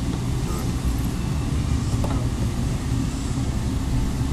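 Steady low background rumble, with a few faint small clicks as plastic phone parts are handled.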